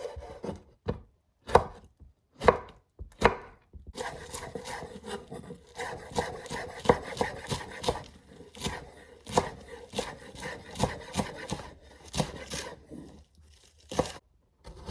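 Kitchen knife chopping vegetables on a cutting board. A few separate cuts come first, then from about four seconds in a quicker run of chops, about two a second, which eases off near the end.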